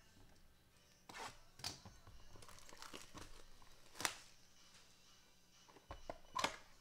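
Plastic shrink wrap being torn and crumpled off a sealed trading card box, in a string of sharp crinkling rips with the loudest about four seconds in and near the end.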